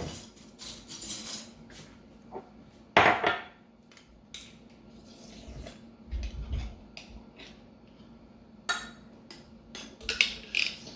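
A utensil clinking and scraping against a jar and bowl as sticky macapuno coconut strings in syrup are scooped out, in scattered clicks with a louder clatter about three seconds in and more near the end.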